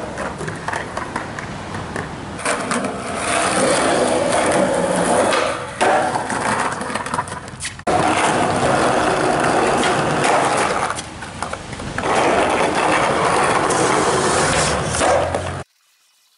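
Skateboard wheels rolling over concrete, a rough steady rumble with a few sharp clacks of the board. The sound changes abruptly several times and cuts out near the end.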